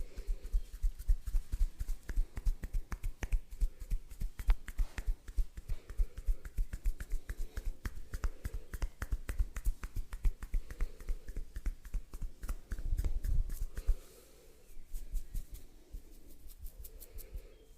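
Hands rapidly tapping and patting on a person's head during a head massage, several quick taps a second with a dull thud to each. They stop about fourteen seconds in, leaving fainter, scattered touches.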